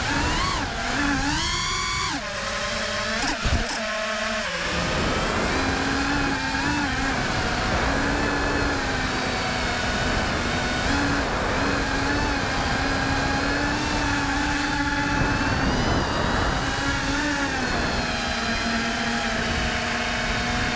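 Brushless motors of an FPV racing quadcopter whining over rushing wind. The pitch swoops up and down sharply with the throttle in the first few seconds, then holds a steadier tone with small jumps.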